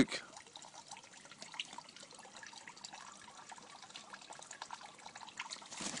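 Faint trickling and dripping of water in a garden pond, a steady patter of small drips.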